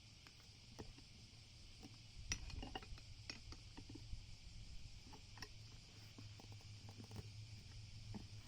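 Light, scattered clinks and knocks of metal tools being handled, over a faint steady low hum.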